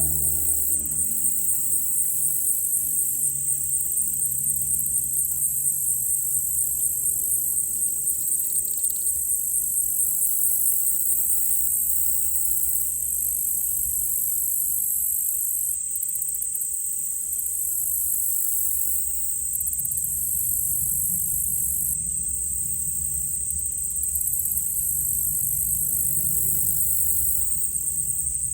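Dense chorus of insects, a steady high-pitched pulsing trill. Under it a small propeller plane's engine drone fades away in the first couple of seconds, and a low rumble swells again in the second half.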